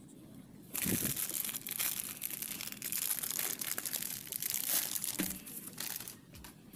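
Clear plastic wrapper crinkling as a sequin-covered notebook is handled inside it. The crackling starts abruptly about a second in, runs in a dense stream of small crackles, and dies away shortly before the end.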